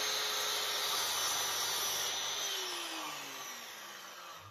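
Metabo sliding mitre saw running and cutting a small strip of wood. From about halfway through, its motor winds down with a falling whine.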